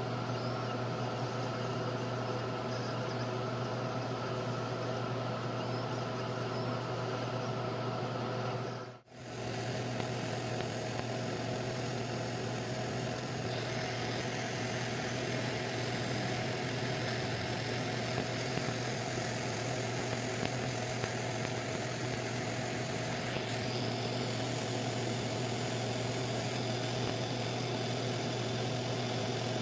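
Laser engraver running while it marks metal: a steady machine hum that drops out briefly about nine seconds in, with a higher hiss joining for about ten seconds in the middle.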